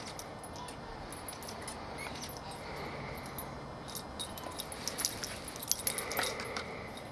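Dog's metal collar tags jingling and clinking as a beagle mix leaps and runs with a toy, the clinks thickest from about four to six and a half seconds in.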